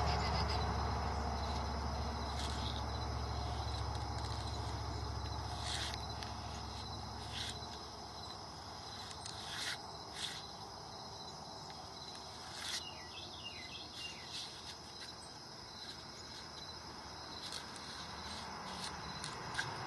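Insects trilling steadily in the background, with a low hum fading away over the first several seconds and a few scattered light clicks.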